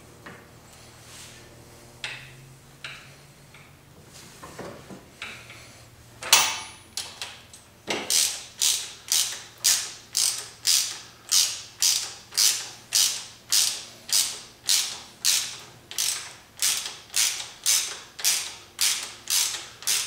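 Quarter-inch drive socket ratchet worked in steady back-and-forth strokes, its pawl rasping a little over twice a second as it runs a loosened nut off a bolt on the motorcycle's foot-peg bracket. Before the steady ratcheting there are a few scattered clicks and a louder rattle about six seconds in.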